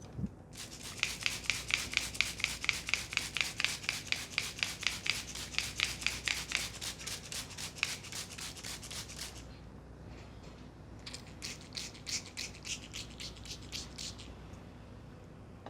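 Hands rubbing briskly back and forth over hair and scalp in a head massage, about five scratchy strokes a second. The rubbing goes on for about nine seconds, stops briefly, then comes back for a shorter run of about three seconds.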